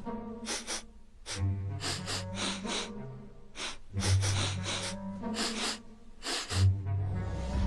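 Cartoon soundtrack music with low bass notes, under a run of short, sharp, hissy sound effects that come in quick groups of two to four.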